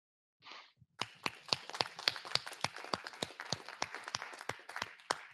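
Small audience clapping: applause that starts about a second in, with individual claps standing out, and thins out near the end.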